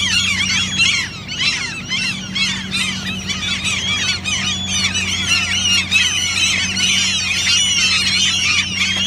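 A colony of gulls calling all at once: a continuous tangle of short, high, rising-and-falling cries from many birds overlapping. These are gulls' alarm calls as they defend nests with chicks against people walking by.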